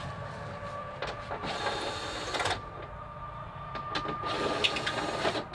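A cordless power driver whirring in two bursts of about a second each, spinning out the 10 mm bolts that hold a truck's headlight assembly, over a steady high hum.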